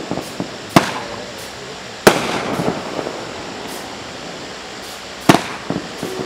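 Dominator Night Wolf 1.4G consumer fireworks cake firing. Three loud, sharp bangs come about a second in, just after two seconds, and a little after five seconds, with smaller pops and crackle between them.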